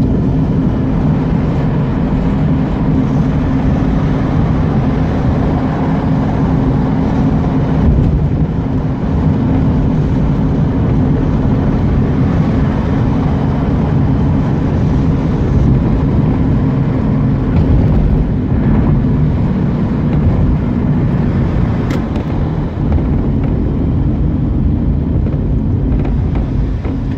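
Mazda RX-8's two-rotor Renesis rotary engine running steadily as the car is driven, with no clear rise or fall in revs.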